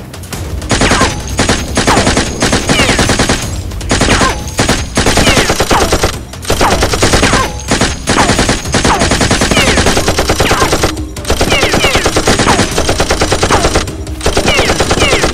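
Automatic gunfire sound effect in rapid bursts of a second or two with short gaps, laced with short falling whistles, dubbed over a Nerf blaster fight.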